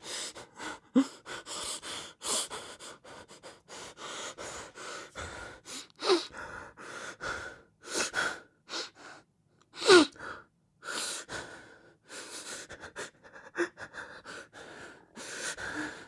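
A person crying hard: a run of gasping, shaky sobbing breaths, broken by a few cries whose pitch falls sharply, around six and ten seconds in, the one at ten seconds the loudest.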